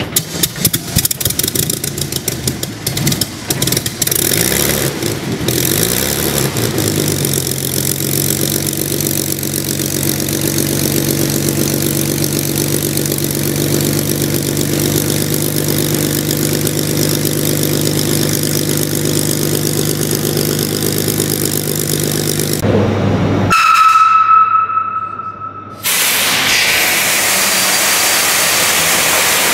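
V12 piston aero engine of a WWII-era propeller fighter starting: ragged coughs and pops as it fires up with flames at the exhaust stubs, then it catches and settles into a steady idle. Near the end there is a brief high whine, followed by a loud, steady rushing hiss.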